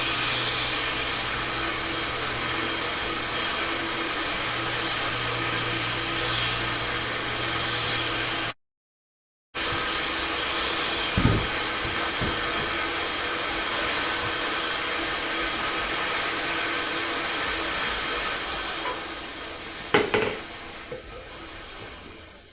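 A forge running with a steady rushing noise over a low hum, cut off for about a second once, with a few knocks and the noise fading away near the end.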